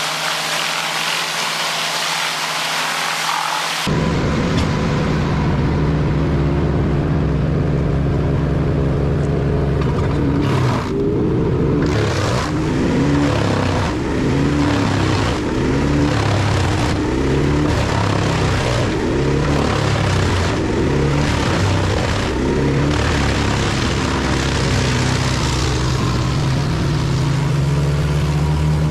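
Large wood chipper's engine running under heavy load as wood is fed in: its pitch sags and recovers again and again, mixed with repeated cracking of wood in the cutter. A hissing rush fills the first few seconds before the engine sound takes over.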